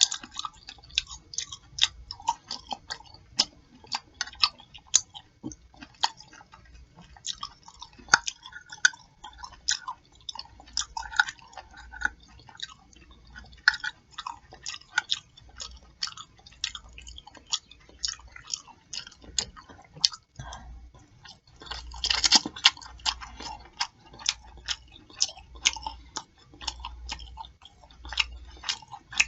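Close-miked open-mouth chewing and lip-smacking of a pork chop meal: a steady run of wet clicks, several a second, with a louder rushing burst about 22 seconds in.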